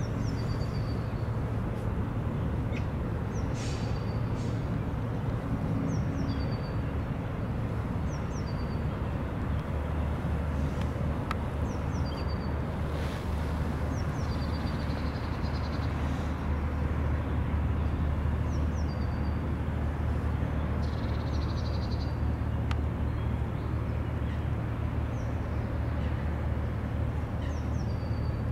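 Low steady drone of an inland motor cargo ship running past, getting fuller about ten seconds in as the hull comes close. A small bird gives short high chirps every couple of seconds over it.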